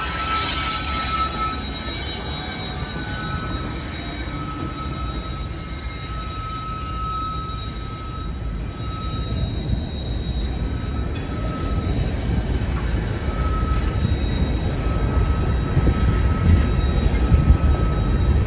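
Empty coal train rolling past: diesel locomotives first, then empty steel hopper cars, with a steady low rumble of wheels on rail and a thin high-pitched wheel squeal that comes and goes. The rumble grows louder near the end.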